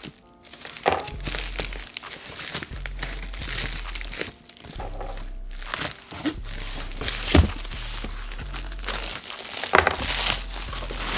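Plastic mailer bag rustling and crinkling as it is opened and a crinkly wrapped package is pulled out of it, with a couple of sharp cracks in the second half.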